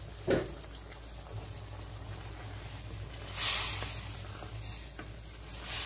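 Wooden spatula stirring a thick spinach and gram-flour curry in a steel kadai: wet swishing strokes through the gravy, the loudest about three and a half seconds in and another near the end, after a sharp tap just after the start.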